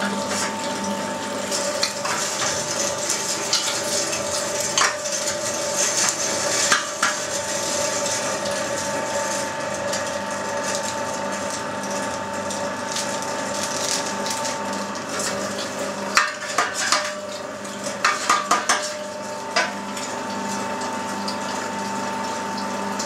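Electric meat grinder running steadily as beef is fed through and minced, a constant motor hum with a steady whine. About three quarters of the way through there is a short run of sharp clicks and crinkles from a plastic bag being handled.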